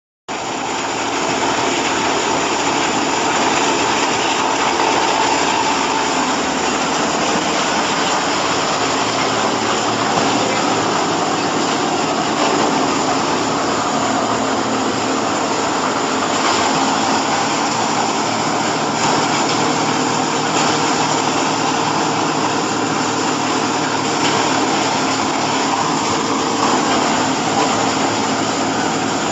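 Corn silage baling machine running: a loud, steady mechanical noise that cuts in abruptly and holds even throughout.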